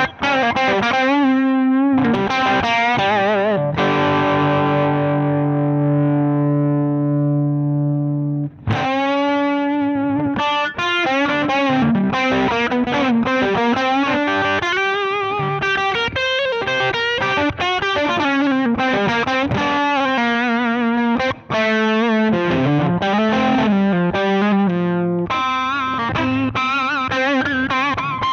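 Electric guitar played through the Zander Circuitry Surplus overdrive pedal, giving a driven, mid-focused overdrive tone: a chord rings out for a few seconds and then busier phrases and riffs follow.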